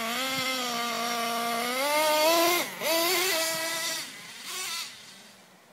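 Small nitro engine of an HPI Savage X 4.6 RC truck with an LRP exhaust, running at high revs. Its pitch rises about two seconds in, dips sharply and recovers, then the sound dies away within the last second or so.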